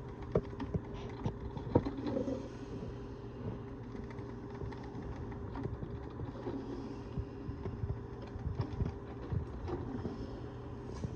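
Mainstays 12-cup drip coffee maker brewing: a steady low hum with many small irregular clicks and pops, the sound of the machine at the start of its brew cycle.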